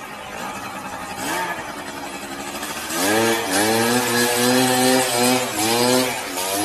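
Small scooter engine revving. It rises in pitch about three seconds in, then is held high in a few stretches with brief dips as the throttle is worked.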